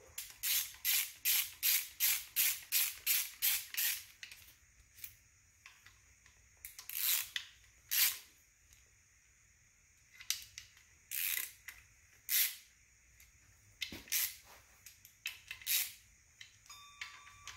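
Hand ratchet wrench running in the timing-cover bolts. There is a quick run of about a dozen short ratcheting strokes, about four a second, at the start, then scattered single strokes.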